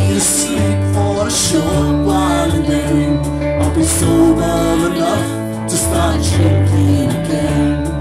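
Live band playing a song, with electric guitar and a bass line that changes note every second or so.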